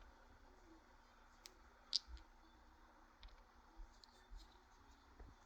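Near silence broken by a handful of faint, sharp clicks, like small hard objects being handled; the clearest comes about two seconds in.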